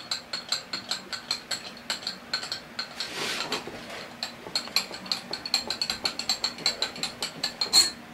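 Milling machine cutting a home-cast cast iron block: a rapid, even ticking at about five a second over a steady machine hum, with one sharper click near the end.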